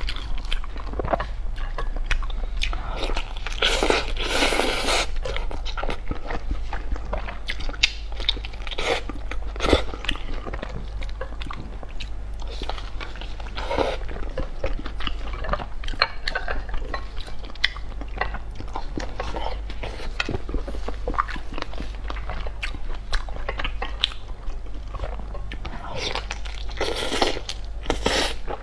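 Close-miked eating of a vegetable sausage stuffed with glass noodles and shredded vegetables: repeated wet bites, crunching and chewing. Near the end comes a longer slurp of noodle strands.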